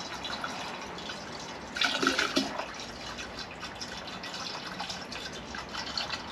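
Water being poured into a fuel jug of gasoline: a steady liquid pour, briefly louder about two seconds in.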